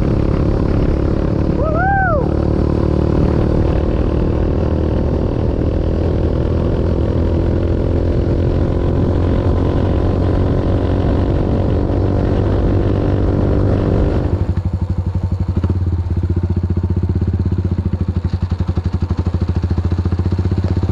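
Motorcycle engine running steadily under way, heard from the rider's seat. About fourteen seconds in the note drops lower and turns into an uneven pulsing chug as the bike eases off.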